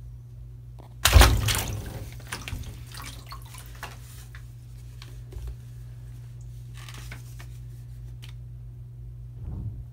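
Bathtub water splashing hard about a second in, then dripping and lapping as it settles, with a smaller splash near the end.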